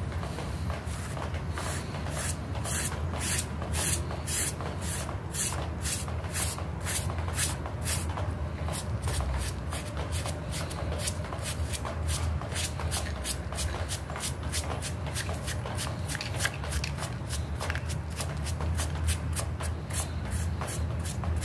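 Small plastic bristle brush scrubbing a wet, muddy carpet sample in short, scratchy back-and-forth strokes, about three a second at first and quickening partway through.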